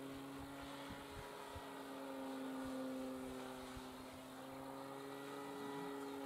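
Electric motor and propeller of a Dynam WACO 1270mm RC biplane humming steadily in flight, faint and distant, its pitch wavering slightly and its loudness swelling and easing as the plane moves.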